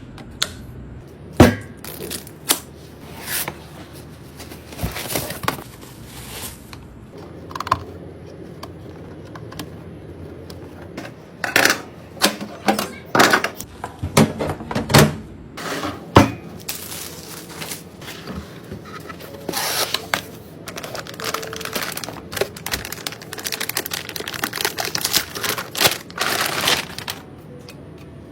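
Hands handling computer parts and packaging: irregular sharp clicks and knocks with short bursts of rustling and tearing, busiest near the middle.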